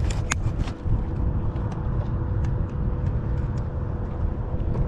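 A boat's motor running under way with wind on the microphone: a steady low rumble with a faint steady whine, and a few small clicks.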